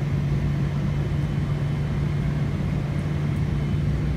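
Steady cabin noise inside a Boeing 777-300ER on its final descent: the drone of its GE90-115B engines and the airflow, with a strong, even low hum.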